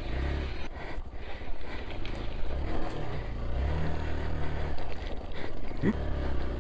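Motorcycle engine running at low speed, its revs rising and falling in short swells with the throttle.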